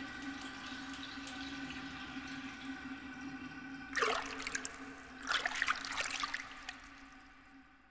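Bathwater in a filled tub: a steady wash of water with two splashing bursts, about four and five-and-a-half seconds in, as a hand moves through it. A soft held tone sits underneath, and everything fades away near the end.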